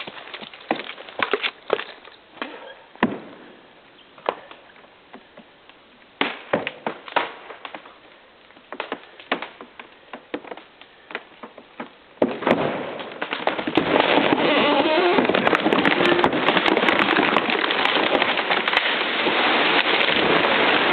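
Wood cracking and snapping in irregular sharp bursts as a chainsaw-cut tree gives way. About twelve seconds in, a loud, dense crackling noise sets in and keeps going.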